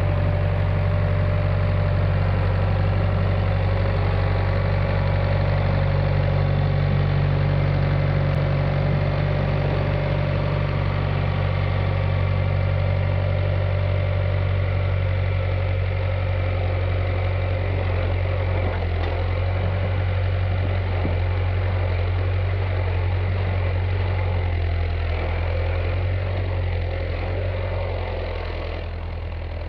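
Early-1970s John Deere backhoe engine running steadily at a low, even speed. Its note drops slightly about two-thirds of the way through.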